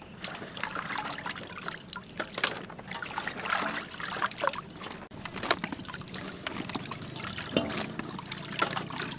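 Peeled sweet potato chunks being washed by hand in a metal basin of water: irregular small splashes, with water dripping and trickling back into the basin as handfuls are lifted out.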